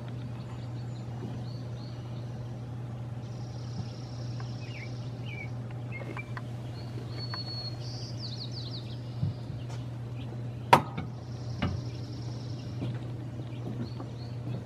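Dawn outdoor ambience: small birds chirping, with a buzzy trill that repeats every few seconds, over a steady low hum. One sharp click about two-thirds of the way through is the loudest sound.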